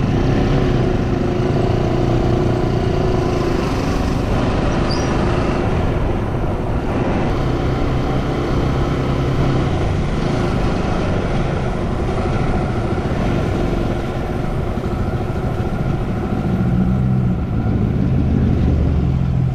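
Motorcycle engine running steadily under the rider while riding slowly in traffic, with road noise; its note shifts a little in the last few seconds.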